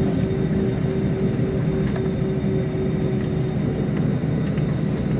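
Airbus A320 jet engines heard from inside the passenger cabin: a loud, steady roar with a constant hum, at an even level throughout.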